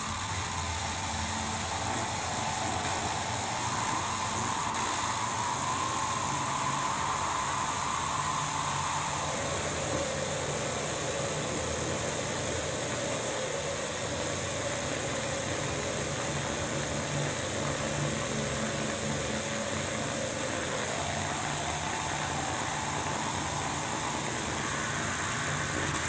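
Harsh noise / dark ambient music: a dense, steady wall of hiss over a droning band. The drone slides down in pitch about ten seconds in and climbs again near the end.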